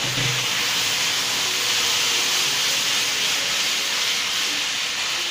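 Steady cooking hiss on a gas stove: sugar and water caramelising in a hot pan beside a kadai of reducing milk.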